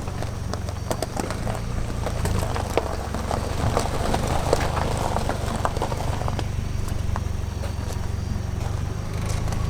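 Nissan 240SX's KA24 four-cylinder engine idling steadily, with scattered light clicks and crackles over it.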